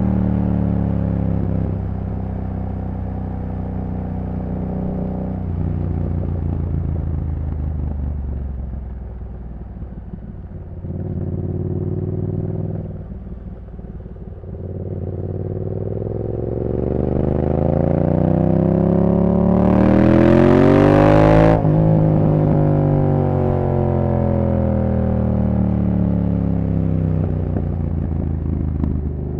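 2015 Yamaha MT-07's CP2 parallel-twin engine through a full race exhaust system. It eases off, runs low for several seconds, then climbs steadily in revs under acceleration to a peak about twenty seconds in. A brief rush of hiss comes at the top before the revs drop away as the throttle closes.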